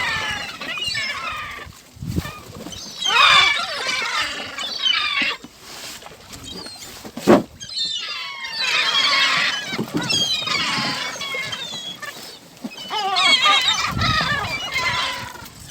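A flock of gulls calling, many overlapping squawks in bursts a couple of seconds long with quieter gaps between them. A single sharp thump comes about seven seconds in.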